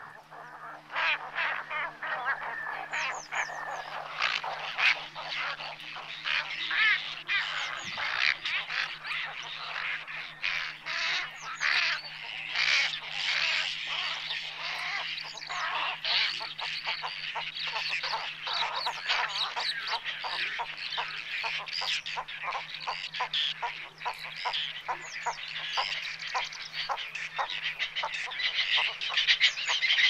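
A large flock of birds calling continuously, with many short, harsh calls overlapping in a dense chorus that starts about a second in. A faint, steady, low hum runs underneath.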